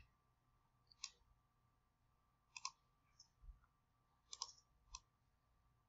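Faint computer mouse clicks, six or so scattered over a few seconds, some in quick pairs.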